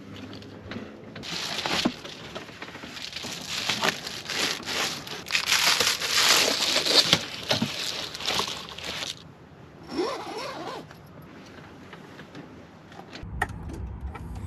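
Fabric sleeping bag and bedding rustling and crinkling as they are bundled up and packed away, busiest in the first two-thirds. A low hum starts near the end.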